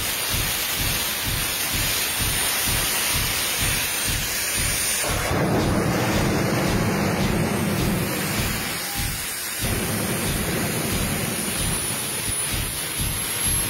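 Jet engine on a buggy running as a steady rough roar, with a low rumble that pulses about three times a second. The roar grows fuller and louder from about five seconds in and falls back again a little after nine seconds.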